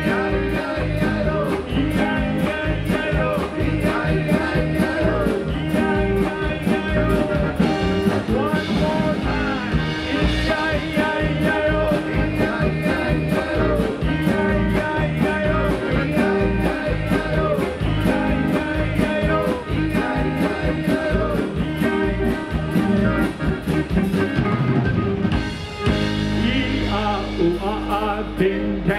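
Live polka band playing: piano accordion with drum kit, electric guitar and keyboard at a steady beat, with a man singing over it.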